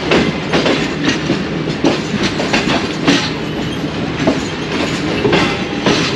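Passenger train wheels clattering slowly over yard points and crossings as the train moves from one track to another: irregular, closely spaced clacks and knocks over a steady running rumble.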